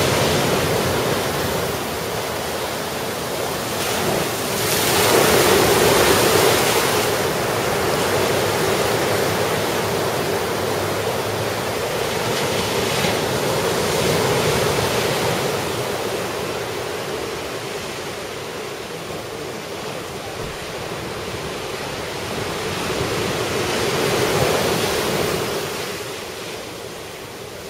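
Ocean surf from a typhoon swell: waves breaking and washing ashore in a continuous rush. It swells loudest about five seconds in and again near the end.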